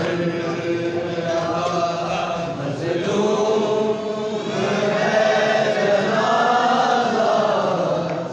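Large crowd of men chanting together in unison, drawn-out voiced lines of a Shia mourning (azadari) chant.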